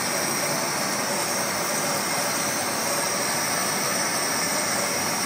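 Laser cutting machine running as it cuts a logo: a steady, even whirring hiss with a few faint constant tones.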